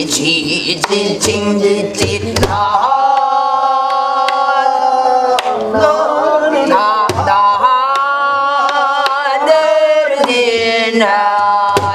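Korean gueum: a woman singing a wordless melody on vocables such as 'na-na-ro, tti-tti', with long held, wavering notes and bending glides, marked by occasional strokes of a stick on a buk barrel drum.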